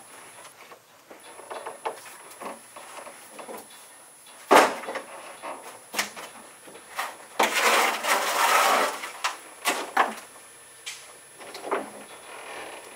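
Hand stonework on a wall: irregular knocks of stone against stone and scraping in mortar. The loudest is a sharp knock about four and a half seconds in, followed by a longer scrape from about seven and a half to nine seconds.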